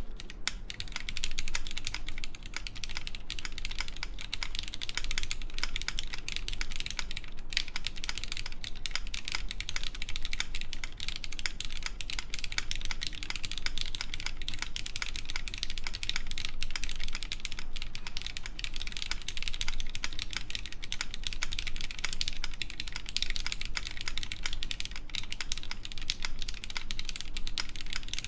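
Continuous fast typing on a Fox Lab Time65 mechanical keyboard with lubed Cherry MX Black linear switches, GMK keycaps and a full aluminum plate with no foam: a dense, steady stream of keystroke clacks.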